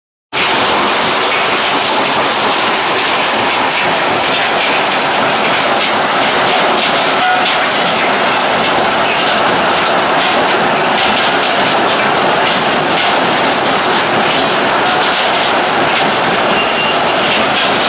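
Mobile stone crushing plant running: a steady, dense rattle and rumble of crushers, vibrating feeder and conveyors breaking and carrying rock. The sound cuts out for a moment at the very start.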